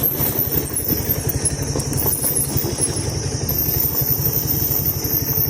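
Motorcycle engine running steadily while riding, a rapid low pulsing throb.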